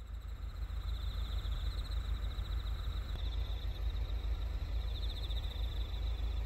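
Outdoor field ambience: insects chirping in a steady, pulsing high trill over a low rumble of wind on the microphone.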